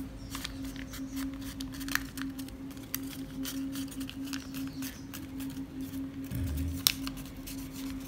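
Sheet of paper crinkling and crackling in many short, sharp clicks as an origami bird's wing is bent and creased by hand. One click about seven seconds in is sharper than the rest. A steady low hum runs underneath.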